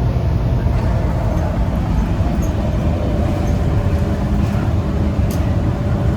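Bus engine and road noise heard from inside the moving bus: a steady low rumble with a thin hum that slowly drops in pitch.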